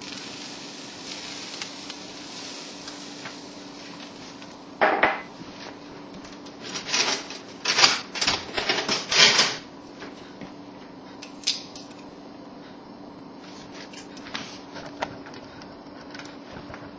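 Metal cooking utensils and cookware clattering and knocking: one sharp clatter, then a quick run of them in the middle, then a few lighter knocks, over a steady low hum.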